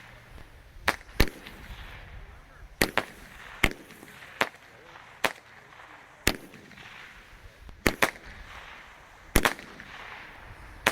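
King Bird Patriot Parachutes 30-shot daytime fireworks cake firing its parachute shots: about a dozen sharp reports, irregularly spaced roughly a second apart, some in quick pairs, with a hiss between them.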